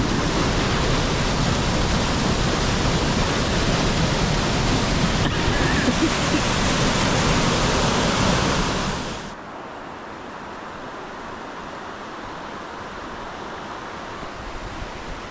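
Rushing water of a mountain creek, a steady dense roar that drops abruptly to a much softer hiss about nine seconds in.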